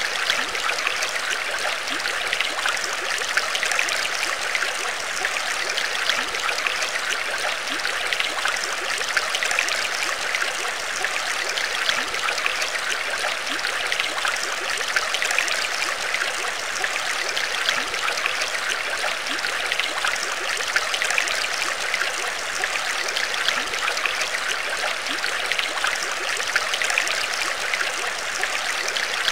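Water trickling and bubbling steadily, a continuous rush of many small splashes.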